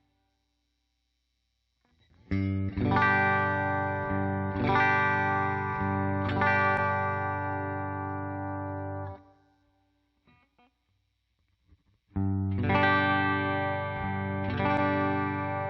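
Telecaster-style electric guitar played through a Fender Twin amp emulation, strumming chords that ring out, cut off sharply about nine seconds in, then resume about three seconds later. Two faint clicks fall in the gap.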